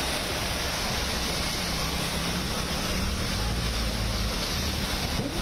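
Cars driving through deep floodwater: a low engine rumble under a steady rush and splash of water pushed up by the wheels.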